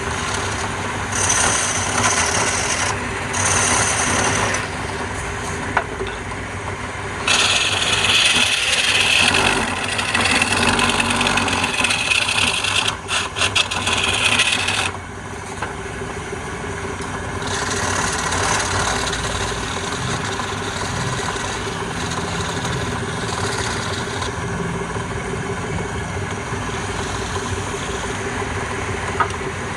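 Wood lathe motor running steadily while a turning tool cuts and scrapes the spinning wood. The cutting is loudest for several seconds in the middle, then eases back to the motor hum with lighter scraping.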